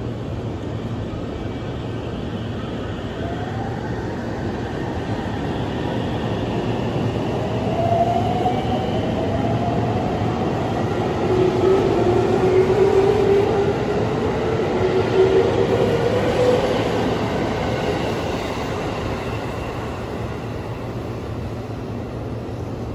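JR Central 313 series electric train pulling away from a station stop, its motors whining in several tones that climb in pitch as it picks up speed. It is loudest as the cars run past, about halfway through, then fades as it draws away.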